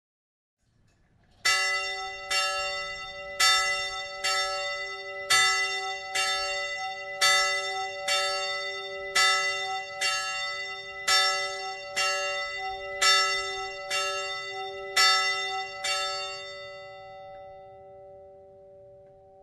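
A single bell tolled about once a second, some sixteen strokes all at the same pitch, then left to ring out and fade.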